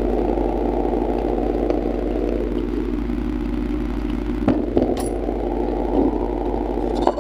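A steady motor-like drone that swells twice, with three sharp clinks of a metal spoon against a clay bowl in the second half.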